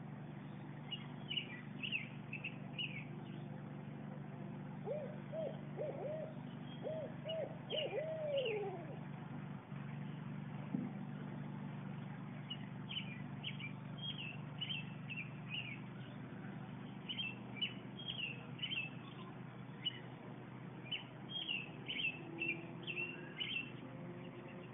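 An owl hooting a series of about eight hoots, the last one long and falling, while small birds chirp in short bursts throughout.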